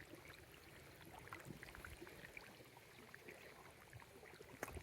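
Near silence: faint outdoor background with scattered small ticks and one sharper click near the end.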